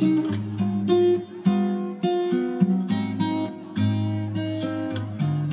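Background music: acoustic guitar strumming and picking chords.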